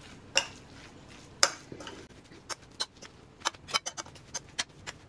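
Metal spoon stirring seasoned raw silverfish in a ceramic bowl, clicking and scraping against the bowl. The clicks are irregular: a few at first, then coming more quickly from about halfway through.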